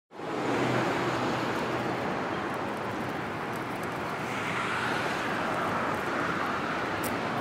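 Steady outdoor street ambience: a constant hiss of distant traffic, with a faint low hum in the first few seconds.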